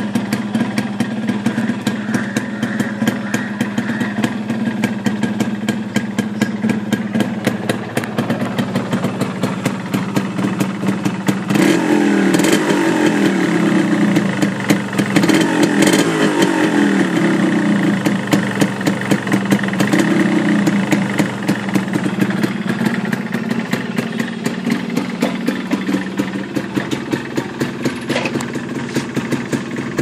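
1986 Yamaha RX100's two-stroke single-cylinder engine idling through its original exhaust. It is revved up and down several times in the middle, then settles back to a steady idle.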